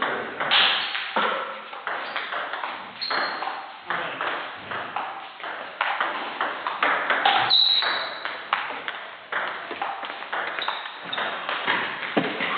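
Table tennis ball clicking back and forth between bats and table in a rally, sharp clicks roughly one to two a second, echoing in a large hall.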